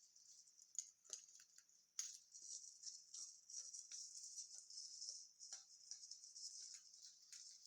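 Soft rustling of fir branches and needles being handled, with a steady high rustle and many small scattered crackles and ticks.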